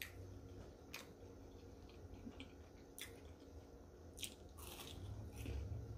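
Faint close-up mouth sounds of someone chewing food: a few scattered wet clicks and smacks, about a second or more apart.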